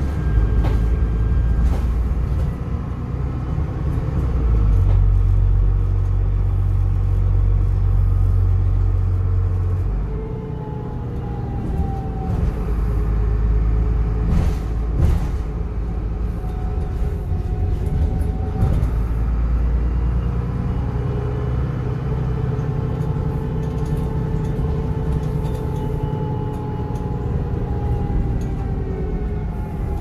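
Dennis Trident double-decker bus heard from its upper deck: the diesel engine's steady low rumble with a loud turbocharger whistle that rises and falls several times as the bus changes speed.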